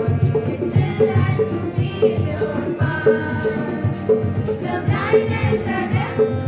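Recorded music with a steady beat of low thumps and a high shaker-like rattle, about two to three beats a second; a melody line comes in about three seconds in.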